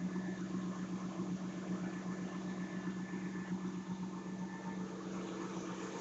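Holden Commodore SS's 5.7-litre LS1 V8 idling steadily shortly after a cold start.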